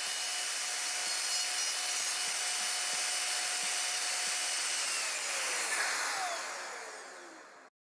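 Festool OF 1400 EQ plunge router running with a steady high whine while routing out a recess in the wood for a patch. About five seconds in it is switched off and its pitch falls as the motor spins down.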